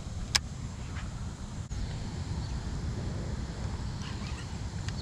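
Wind buffeting the microphone, a low rumble, with one sharp click about a third of a second in.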